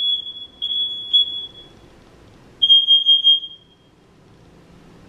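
Smoke alarm beeping in long high-pitched tones, each about a second long, falling silent about four seconds in. The alarm has been going off like this for a couple of days, a malfunction waiting on maintenance.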